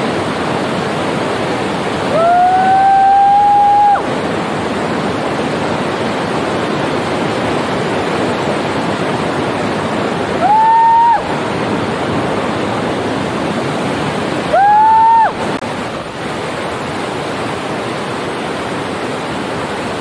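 Steady rush of a waterfall and its river, with three loud, long held calls over it, each rising in pitch as it starts: a two-second one a couple of seconds in, then two shorter ones in the middle.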